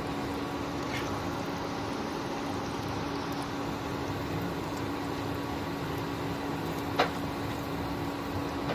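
Spatula stirring yogurt and cream into hot masala in a nonstick kadhai, over a steady sizzle and the even hum of an induction cooktop. The spatula taps the pan faintly about a second in and more sharply later.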